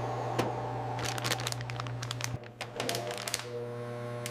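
Plastic packaging film crinkling, with many scattered clicks and crackles over a steady low hum, as boar meat is vacuum-sealed in plastic.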